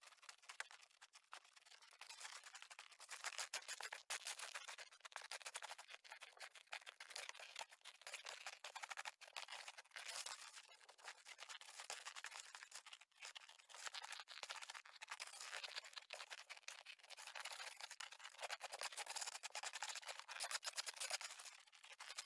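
Snow shovel scraping and crunching through fresh snow, in faint, irregular strokes.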